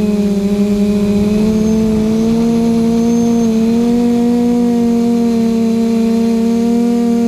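QAV540G quadcopter's electric motors and propellers humming steadily, heard from the GoPro mounted on the drone; the pitch steps up slightly about halfway through.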